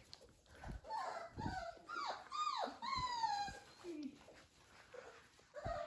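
Young Dalmatian puppies whining: a run of short, high whimpers, mostly falling in pitch, between about one and three and a half seconds in.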